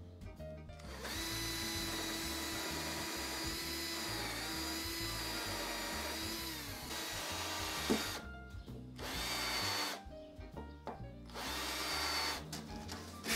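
Cordless drill boring into a wooden mast: one steady run of about six seconds that sags slightly midway and winds down, then two short bursts near the end.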